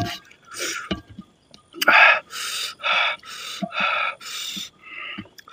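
Mouth sounds of a man eating rice and chicken curry with his fingers: a run of short, noisy breaths and slurps, about two a second, loudest about two seconds in.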